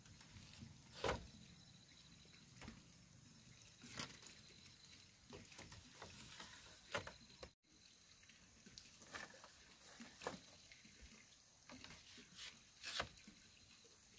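Split bamboo poles knocking and clacking against each other and against the fence as they are handled and set upright. The knocks are scattered, one every second or few seconds, with the loudest about a second in, around the middle and near the end.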